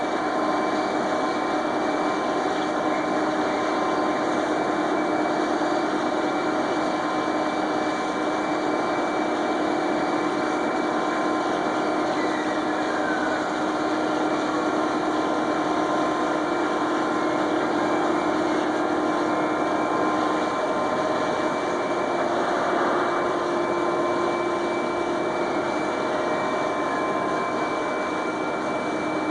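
Reifenhäuser raffia tape extrusion line running, drawing and winding blue plastic tape: a steady industrial machinery noise with constant whining tones and a brief falling whine about halfway through.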